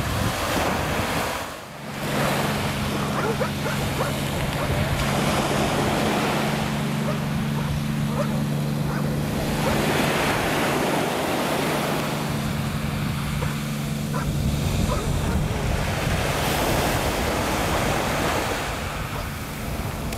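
Small waves washing onto a pebble beach, with wind buffeting the microphone. A steady low hum runs through the sound from about two seconds in until about fifteen seconds in.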